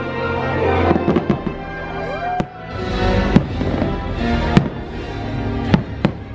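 Fireworks going off in a string of sharp bangs, about one a second, over orchestral music.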